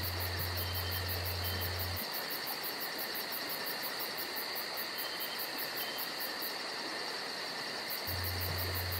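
Insects chirping in a fast, even pulse over a constant high buzz. A low hum sounds for the first two seconds and comes back about a second before the end.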